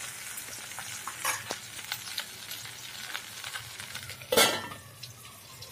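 Goat brain frying in oil in an aluminium pot, sizzling steadily while a metal ladle stirs with light scrapes and taps. About four seconds in, a metal lid comes down on the pot with a brief clatter, and the sizzle is a little quieter after it.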